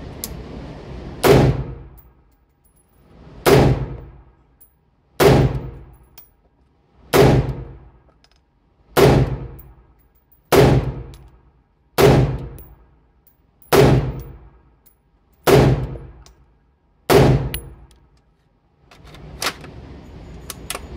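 Ten slow, evenly paced 5.56 rifle shots, about one every one and a half to two seconds, each ringing out in the echo of an indoor range booth. Two quieter sharp cracks come near the end.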